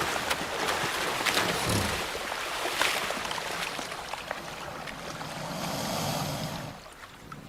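River water splashing and churning as Nile crocodiles thrash and spin while tearing flesh from a hippo carcass, with many sharp splashes; it dies down near the end.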